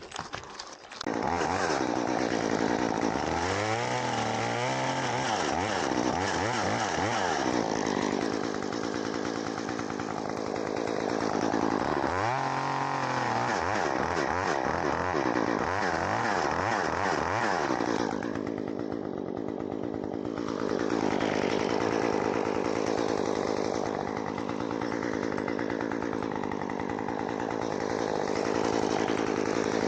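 Two-stroke chainsaw running high in a tree, starting about a second in and revving up and down several times as it works.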